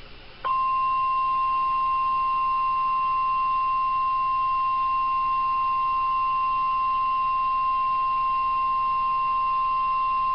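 NOAA Weather Radio 1050 Hz warning alarm tone: one steady, unbroken tone that starts about half a second in and cuts off abruptly after about ten seconds. It signals that a warning is about to be broadcast, here a severe thunderstorm warning.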